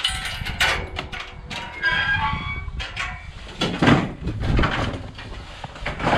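Sheep bleating, near the start and again about two seconds in, among knocks and clatter and a low rumble.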